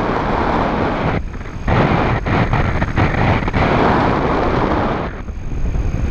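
Airflow from paraglider flight buffeting an action camera's microphone: a loud, gusty rush of wind noise that drops away briefly about a second in and again near the end.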